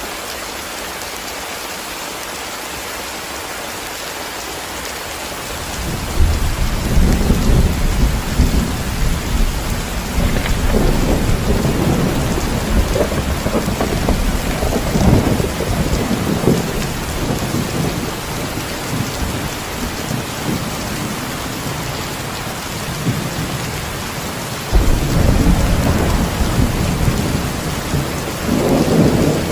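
Steady heavy rain hissing down. About six seconds in, deep thunder rumbles in and rolls on for several seconds before easing, and a second peal of thunder breaks in near the end.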